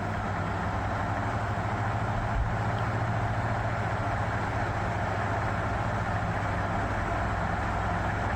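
1973 National F-30AAD table fan running steadily on high speed: a low motor hum under an even rush of air from the shark fin blades. The owner finds it stiff, with the bearings and gearbox gummed up with old grease.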